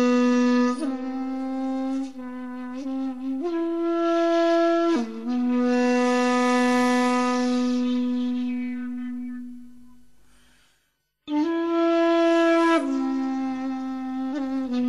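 Background music: a breathy solo flute playing a slow melody of long, held notes. A long note fades away to a brief silence about eleven seconds in, then a new phrase begins.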